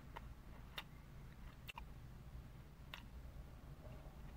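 Faint chewing of a crispy fried chicken sandwich: a few short, sharp crunching clicks at irregular moments, over a low steady hum.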